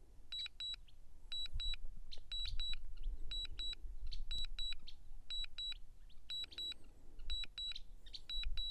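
DJI drone remote controller beeping its return-to-home alert: short high double beeps, about one pair a second, signalling that the Mini 3 Pro is auto-returning home on low battery. A faint low rumble runs underneath.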